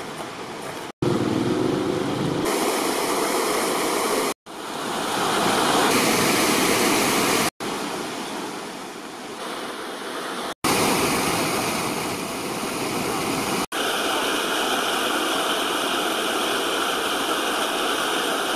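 Steady rushing of a shallow stream's running water, jumping in level and tone at several abrupt cuts about every three seconds.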